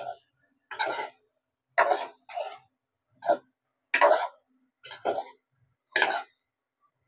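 A person coughing in a long run of short, separate coughs, about one a second.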